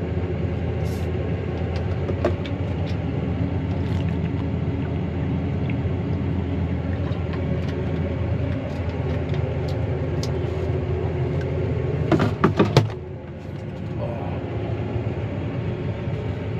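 Claas Arion 650 tractor's six-cylinder diesel engine running steadily, heard from inside the cab as a deep hum. A few sharp clicks are scattered through it, with a cluster of knocks about twelve seconds in, after which the engine sound drops a little.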